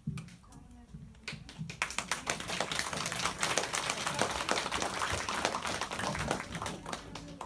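Audience applauding, starting about a second in and carrying on as steady dense clapping.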